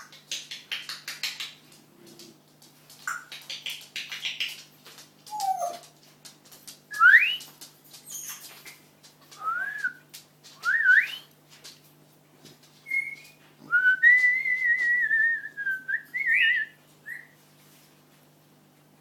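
Pet parrot making scratchy, chattering noises, then whistling: a few short rising whistles and then one longer warbling whistle.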